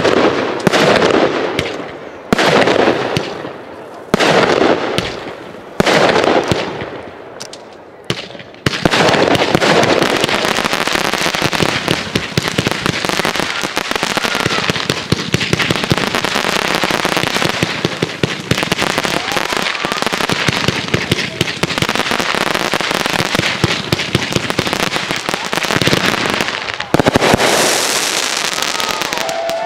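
Fireworks display: aerial shells bursting one after another, each a sharp boom with a long echoing decay, about every one and a half to two seconds. From about nine seconds in it becomes a dense, continuous barrage of rapid crackling reports, with another loud burst near the end.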